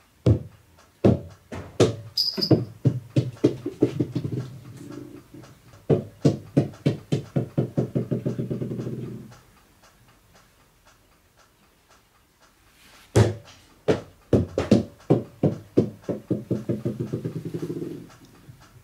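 Small rubber bouncy balls (super balls) bouncing on a wooden floor. The bounces come faster and faster and fade until each ball settles in a quick rattle. This happens twice, the second run starting about 13 seconds in.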